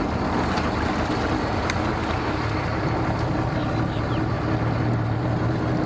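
Engines running at idle: a steady low hum that grows a little stronger near the end, with a few faint clicks.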